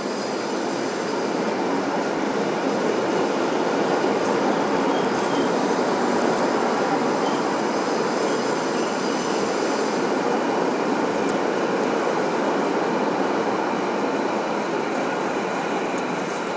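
Freight train of bogie hopper wagons rolling past close by: a steady rumble and hiss of steel wheels on rail, with a few sharp high clicks.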